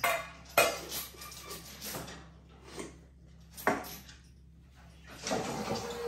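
A metal cracker tin and its lid clanking and rattling. There are two sharp clanks close together at the start, another a little past halfway, and a longer rattle near the end.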